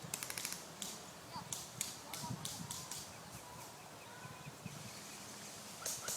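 A quick burst of airsoft gunfire, about eight rapid shots in half a second near the start, then a run of irregular footsteps on the ground.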